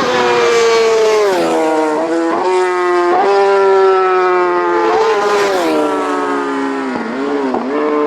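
Road-racing motorcycles at full throttle going past, the engine note dropping sharply in pitch twice as they go by, with short dips in the note between.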